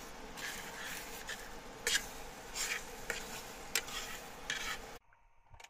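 Metal spoon stirring a thick sauce in a stainless steel pan on an induction cooktop, with six or so short scrapes against the pan, over a steady electrical hum. The sound drops away suddenly about five seconds in.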